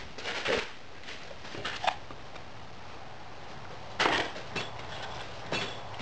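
Backing sand being scooped and dumped into a wooden moulding box, heard as about four short, gritty thuds. The loudest comes about four seconds in.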